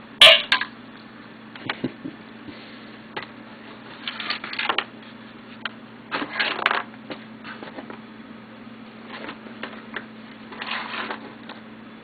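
Handling noise from the opened smoke detector's plastic housing and wiring: a sharp click just after the start, then scattered knocks and three bursts of scraping, rattling clatter.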